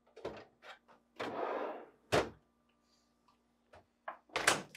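Plastic deli drawer (meat pan) of a GE refrigerator being set onto its slide pins and pushed home: a few light plastic clicks and knocks, a short sliding scrape about a second in, a sharp knock just after two seconds, and two more knocks near the end.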